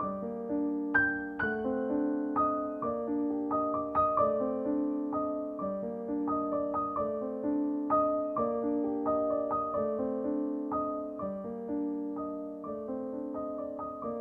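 Background piano music: a gentle melody of steady single notes and chords, about two notes a second.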